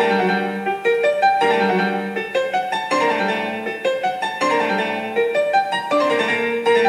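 Background piano music, many notes in quick succession.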